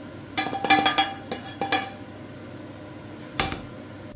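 Tableware clinking: a quick run of ringing clinks starting about half a second in and lasting about a second and a half, then a single clink near the end.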